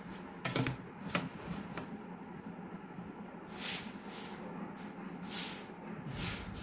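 Plastic drawing instruments (set squares and a scale) being shifted on the drawing sheet, with a few light clicks in the first second or so; then, from about halfway, a run of short scratchy pencil strokes drawing lines along the scale, about one every half second, over a faint steady hum.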